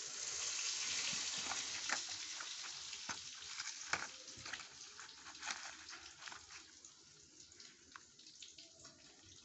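Small cardboard tablet box being picked up and handled: scattered clicks and crackles over a hiss that fades over the first few seconds.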